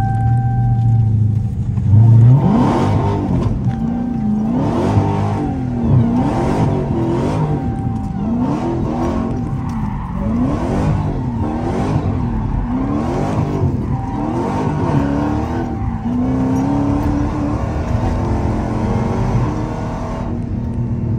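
Supercharged Hellcat V8 heard from inside a Dodge Challenger's cabin, revved hard about two seconds in, then climbing and dropping in pitch about once a second as the throttle is worked hard around a block, settling to a steadier run near the end.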